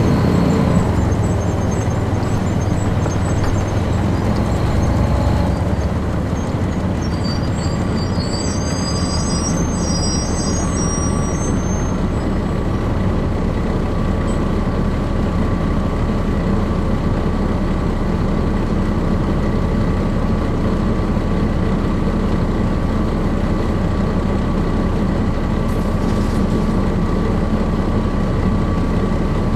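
Cummins C8.3 diesel engine of a 1996 Nova Bus RTS transit bus running steadily, heard from inside the bus. Faint high squeaks come through for a few seconds about a quarter of the way in.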